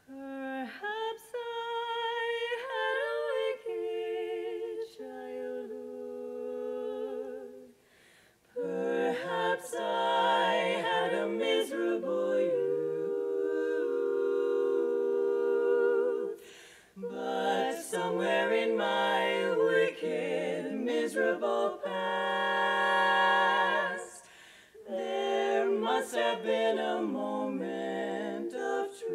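Women's barbershop quartet singing a cappella in four-part close harmony, starting the song from silence, in sung phrases with short breaks about 8, 16 and 24 seconds in.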